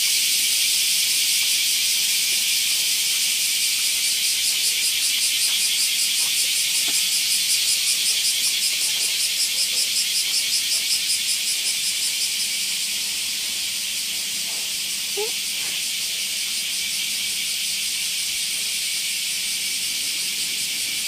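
Cicadas droning in a loud, high hiss. A fast pulsing chorus swells and fades between about 4 and 12 seconds in.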